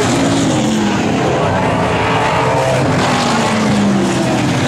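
Engines of several super saloon race cars racing, loud and continuous, with overlapping engine notes that rise and fall in pitch as the cars accelerate, back off and pass.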